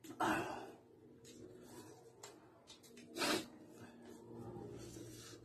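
Close-up eating sounds of a man eating rice and pork by hand: soft chewing and mouth noises with faint small clicks, and two louder short breathy sounds, one just after the start and one about three seconds in.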